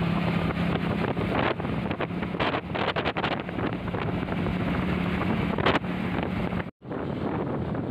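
Wind buffeting the microphone on a moving scooter, over the steady hum of its engine. The sound cuts out for a moment near the end, then comes back.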